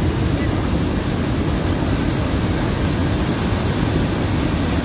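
Muddy floodwater rushing over the edge of a flooded road in a long, wide cascade: a loud, steady rushing noise, heaviest in the low end.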